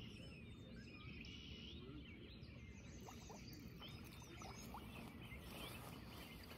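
Faint outdoor ambience: scattered small bird chirps over a low, steady background hum.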